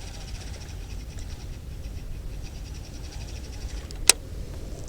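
Wind rumbling on the microphone, with a faint, rapid high-pitched ticking over the first few seconds and a single sharp click about four seconds in.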